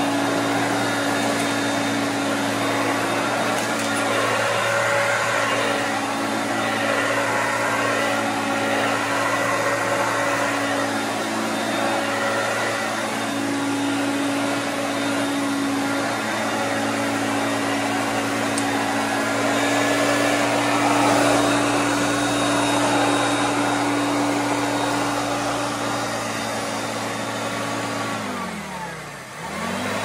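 Hoover Concept upright vacuum cleaner running steadily over carpet, a constant motor hum with rushing air. Near the end the motor winds down, falling in pitch, then spins straight back up.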